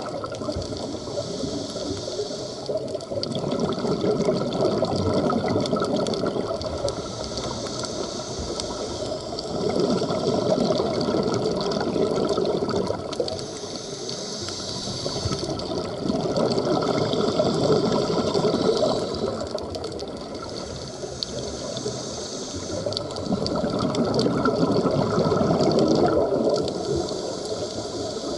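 Scuba diver's breathing heard underwater: a bubbling rush of exhaled air from the regulator that swells and fades every six or seven seconds, with a higher hiss between the swells.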